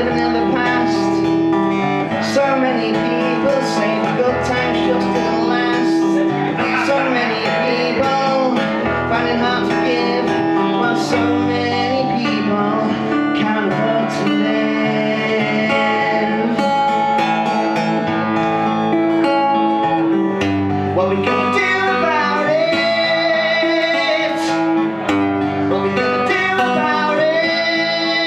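Acoustic guitar strummed steadily while a man sings along, a live solo song performance.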